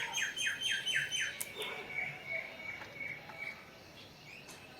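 Birdsong: a fast run of repeated falling chirps, about five a second, for the first second or so, then a fainter string of short chirps that fades out a little past halfway.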